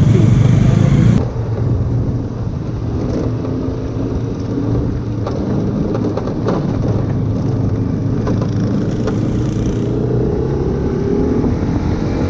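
Motorcycle engine running on the move, with road and wind noise; the sound drops at a cut about a second in, and the engine pitch rises steadily near the end as it accelerates.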